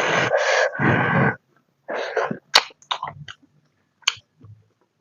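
Close-miked mouth and breath sounds: a few loud breathy bursts in the first second and a half, then softer clicks and smacks.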